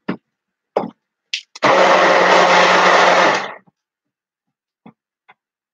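Handheld stick blender running steadily for about two seconds, about one and a half seconds in, mixing clay into water to break up lumps. A few short handling knocks come just before it, and two faint ticks come after.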